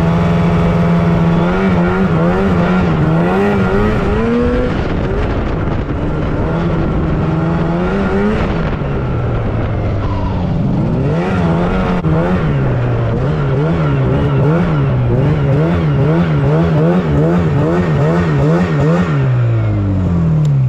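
Yamaha Phaser II snowmobile's two-stroke twin running under throttle while riding. It holds steady at first, then revs up and down, rising and falling quickly about twice a second in the second half, and the pitch drops away near the end as it slows.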